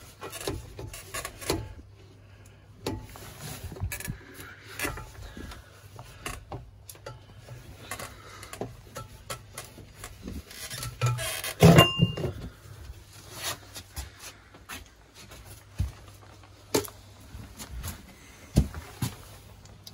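Scattered knocks, scuffs and scrapes as a ceramic toilet pan is handled and shifted, with one much louder knock about twelve seconds in.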